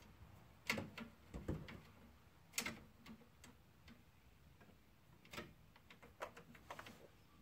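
Scattered light clicks and taps of a new metal brake line being handled and fed along a car's underbody, with the loudest tap a little under a second in.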